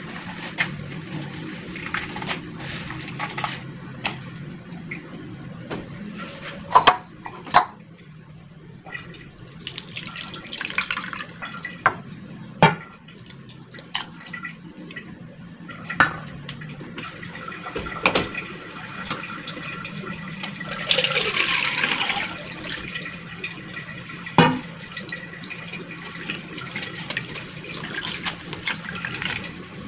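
Hands squeezing wet grated coconut to extract coconut milk, which splashes and trickles through a mesh strainer into a bowl, with a louder rush of liquid about two-thirds of the way through. Scattered sharp knocks come from the strainer and bowls being handled.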